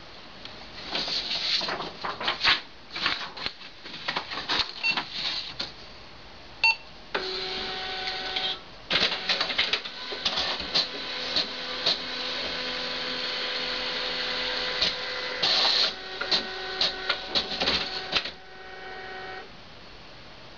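Desktop printer running a job: a run of mechanical clicks and rattles, a short high tone about seven seconds in, then a steady motor hum with the mechanism clattering over it, stopping about a second before the end.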